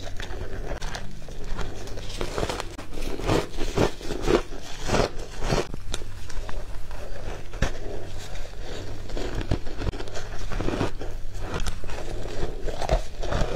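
Chunks of ice coated in matcha powder being bitten and chewed close to the microphone: repeated, irregular sharp crunches and crackling of the ice breaking between the teeth.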